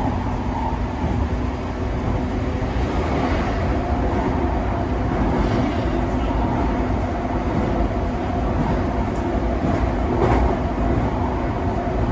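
Running noise inside the passenger car of an E131 series electric train under way: a steady rumble of wheels on the track with a faint steady hum.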